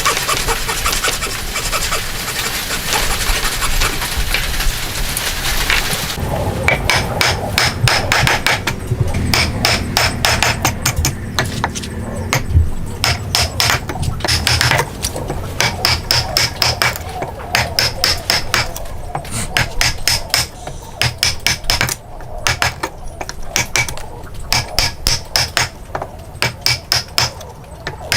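Hand tools working wood: a continuous rasping, scraping sound for about six seconds, then a long run of sharp, rhythmic strokes, roughly two to three a second.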